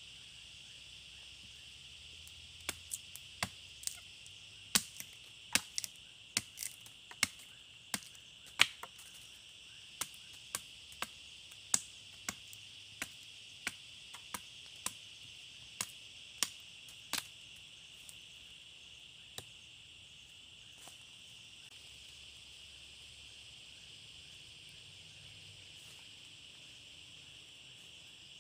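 Machete blade chopping into a wooden stick: about two dozen sharp, irregular cracks over some fifteen seconds, then stopping. Under them runs the steady high buzz of insects.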